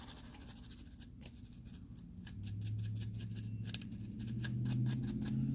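Rapid dry scrubbing strokes of a small brush over a dusty phone part, several strokes a second, as the dust is brushed off.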